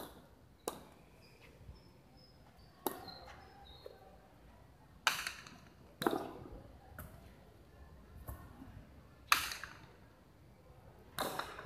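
A jai alai pelota smacking against the fronton's front wall and concrete floor in a rally. There are about nine sharp cracks, unevenly spaced, each ringing briefly off the walls; the loudest comes about nine seconds in.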